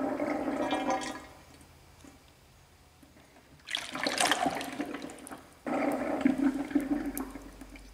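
Used hydraulic oil from a BendPak GrandPrix GP-7 lift's reservoir being tipped out into a drain pan: a stream of oil pouring and splashing. It comes in three spells, with a quiet pause of about two and a half seconds after the first.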